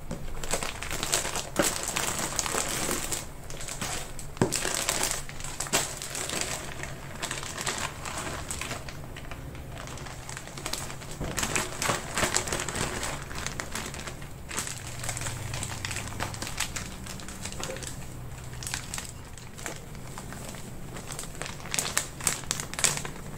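Plastic bags crinkling and rustling as they are handled and shaken out, tipping dry, crumbly bait ingredients into a pot. The crackles come thick and irregular, busiest in the first few seconds and again near the end.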